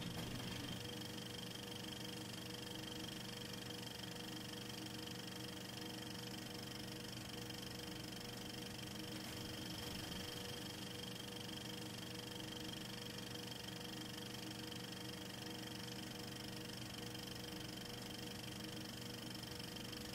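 Steady hiss with a constant electrical hum and whine underneath, unchanging throughout, with no distinct sounds: noise on a home movie that carries no live sound.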